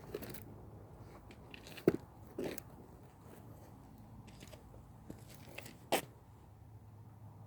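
Scattered scuffs and knocks of a climber's shoes and hands on the boulder. The sharpest knock comes about two seconds in, with another near six seconds.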